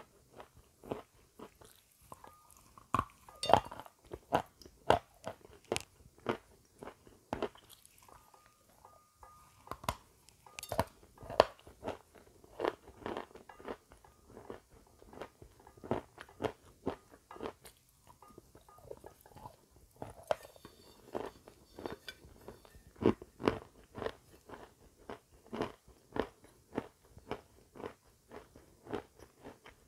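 Close-miked eating of a crisp white snack: repeated crunching bites and chewing, sharp irregular cracks several times a second, with a few louder bites standing out.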